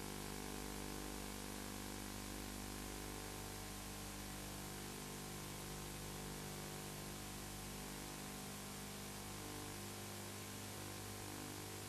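Steady hiss with a low electrical hum: the background noise of an old home-video recording, with no hoofbeats or voices standing out.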